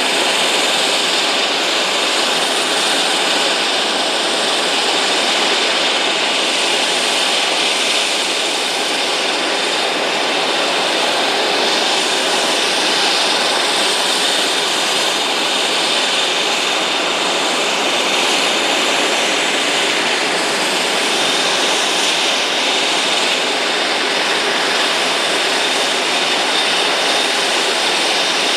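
Dash 8 Q400's two Pratt & Whitney Canada PW150A turboprop engines idling on the ground with the propellers turning: a steady hiss of engine and propeller noise with a thin high whine over it.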